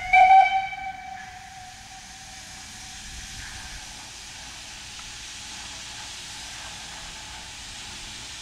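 ELNA steam locomotive starting away: a blast of its steam whistle dies out within the first second, then a steady hiss of steam from the open cylinder drain cocks.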